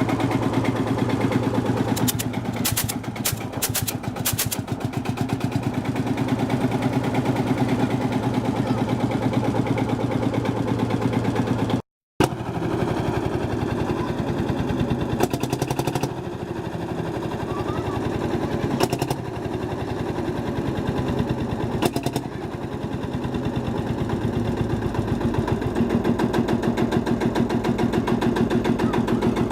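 Field Marshall Series 3 tractor's single-cylinder two-stroke diesel engine running steadily with an even pulsing beat. The sound drops out briefly partway through.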